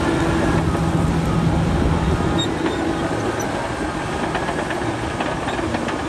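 Large Caterpillar crawler bulldozer's diesel engine running steadily under load as the dozer pushes earth with its blade.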